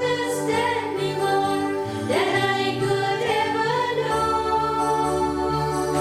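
A devotional hymn sung by voices over a sustained keyboard-like accompaniment, the sung notes held with vibrato and gliding between pitches.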